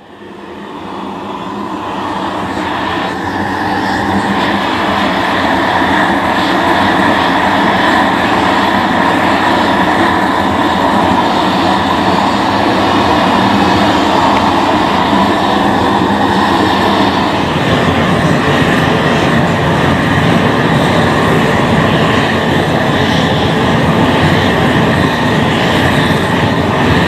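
Large propane torches burning steadily while heating a copper boiler for silver soldering. The sound builds over the first few seconds, then holds steady.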